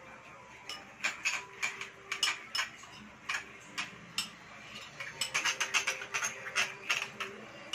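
Sweet-and-sour sauce heating in a frying pan, giving off irregular sharp ticks and pops that come thickest about two thirds of the way through, as the liquid works up towards a boil.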